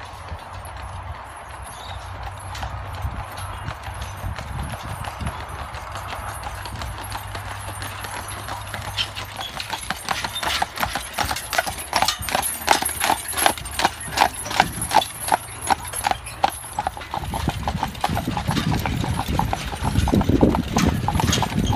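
Hooves of a pair of Clydesdale carriage horses clip-clopping on a sealed road at a steady, even rhythm, growing louder as they come closer. A low rumble comes in near the end.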